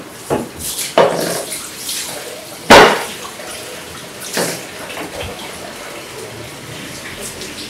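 Kitchen work at a counter: dishes and utensils knocking and clattering several times, the loudest knock about three seconds in, over a steady hiss like running water.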